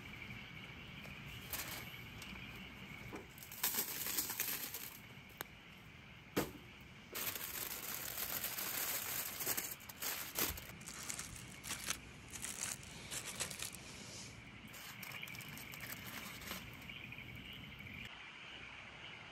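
Aluminium foil crinkling and rustling in bursts as it is folded and pressed around sliced mushrooms and eggplant to make a foil packet, settling down for the last few seconds. A steady chirring of insects runs underneath.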